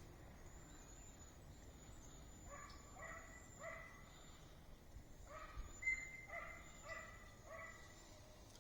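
Faint animal yelps: two runs of short, pitched notes, about two a second, the first starting about two and a half seconds in and the second a little past the middle.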